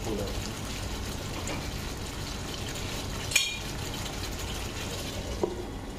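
Chicken curry gravy simmering in a frying pan over a gas burner, a steady low hiss. A sharp tick comes about three and a half seconds in, and a light knock near the end.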